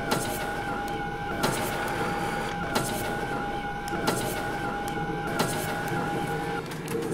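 Office photocopier running: a steady whine with a sharp click about every second and a quarter, the whine stopping shortly before the end.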